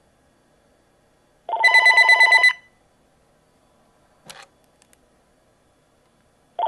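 VTech CS6124-11 DECT 6.0 cordless phone ringing with its electronic ringer: a burst of rapidly pulsing tones lasting about a second, then a second ring starting near the end. A short click falls in the pause between rings.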